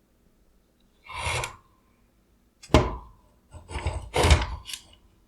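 Hard parts being handled and set down on a work surface: a short scrape, then a sharp knock with a brief ring, then a quick run of knocks and rattles.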